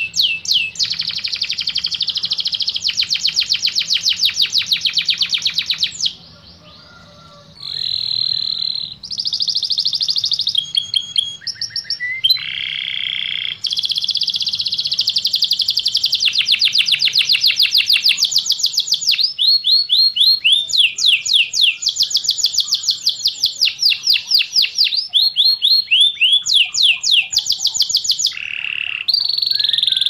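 Domestic canary singing: long phrases of fast trills and rapidly repeated notes, many sweeping down in pitch, broken by short pauses, the longest about a second and a half some six seconds in.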